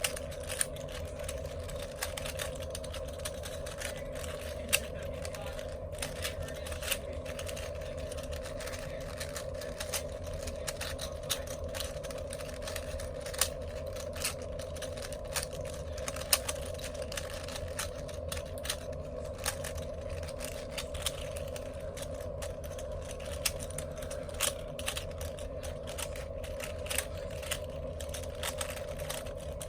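Plastic 4x4 Rubik's cube being scrambled: its layers turned quickly by hand, giving a run of irregular clicks and clacks over a steady background hum.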